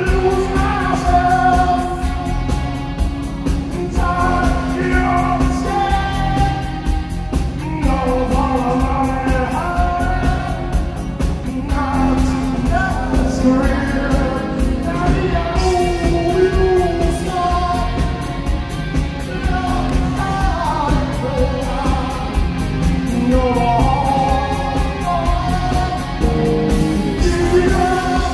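Live rock band playing with a male lead singer: sung vocals over guitar, bass and drums with a steady driving beat, heard loudly in a hall.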